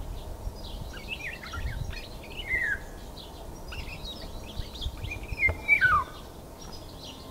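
Small garden birds chirping and calling in short sweeping notes. The loudest is a whistled phrase, a little over five seconds in, that slides down in pitch.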